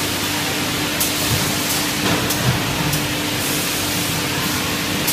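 PS foam lunch-box forming machine running on the factory floor: a steady hiss with faint sharp ticks about every 0.7 s, over a low hum that stops about halfway through.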